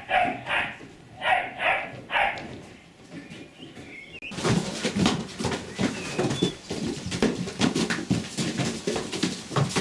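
A dog barks about six times in quick succession. From about four seconds in, Irish Wolfhound puppies move about in their pen, giving a dense, continuous scuffling with many small clicks and knocks.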